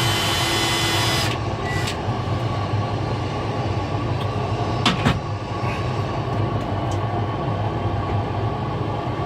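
Cordless drill spinning a small center drill into a rivet head to start a pilot hole, stopping about a second in, followed by a brief second burst of the drill. After that there is a steady low hum with a single sharp click near the middle.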